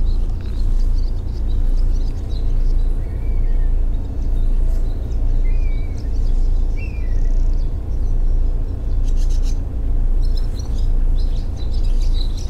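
Small birds chirping now and then over a steady low hum that swells and fades about once a second.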